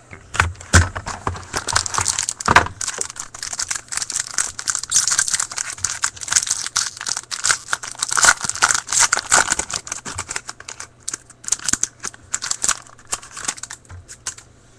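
Packaging of a hockey card box being opened by hand: dense, irregular crinkling, rustling and tearing with quick clicks, and a few louder snaps near the start.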